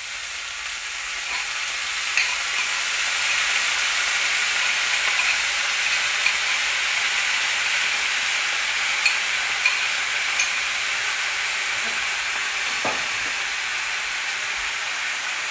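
Shredded red cabbage sizzling in a hot frying pan as a dressing of olive oil, apple balsamic vinegar and honey is poured over it. The sizzle swells over the first couple of seconds and then holds steady, with a few light clicks.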